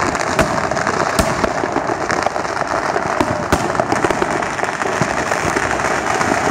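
Neighbourhood fireworks and firecrackers going off all at once: a dense, continuous crackle with several sharper, louder bangs standing out of it.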